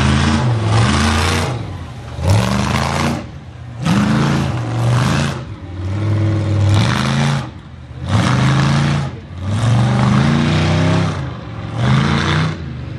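Mega truck's engine revved hard in about seven repeated bursts, each a climbing pitch that falls away between throttle stabs.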